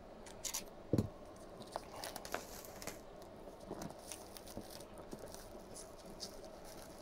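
Faint crinkling and tearing of plastic shrink-wrap being cut and peeled off a vinyl box set, with scattered small clicks and one soft knock about a second in.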